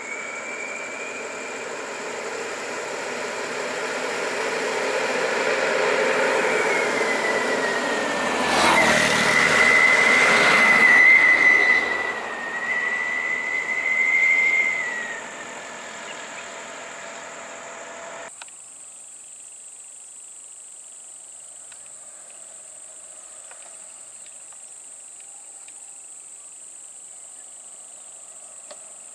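A large passenger bus drives past close by, its engine and a high gear whine swelling as it goes by, then fading away. About two-thirds of the way through, the sound cuts abruptly to a much quieter steady high insect buzz.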